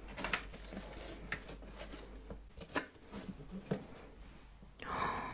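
Unboxing handling noises: scattered soft clicks and taps of packaging being handled, with a short rustle about five seconds in.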